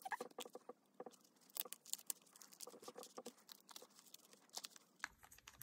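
Faint handling of plastic card sleeves and binder pocket pages: many light ticks and soft rustles as cards are slid in and arranged.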